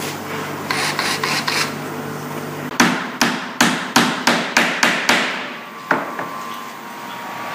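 Small hammer striking a wooden board: a quick run of about ten sharp taps at four or five a second, then a single tap. Before the hammering, wood scrapes and rubs as pieces are handled.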